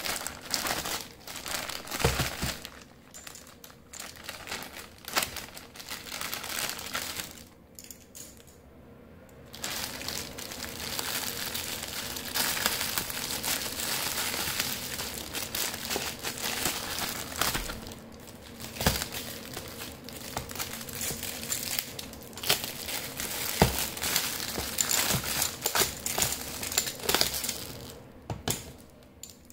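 Plastic mail bag crinkling and rustling as it is handled and opened, with the clear plastic bag around the toy inside rustling as it is pulled out. A few knocks stand out, and there is a short lull about eight seconds in before the crinkling turns denser and steadier.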